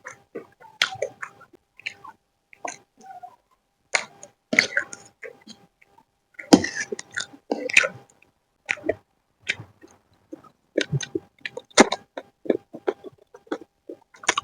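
Close-up eating sounds of chicken chowmein: irregular wet chewing, slurping and smacking of noodles and chicken, with frequent sharp clicks.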